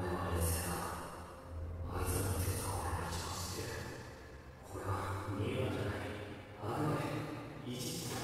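Muffled, heavily processed dialogue from the anime being watched, in about four phrases with short pauses between them.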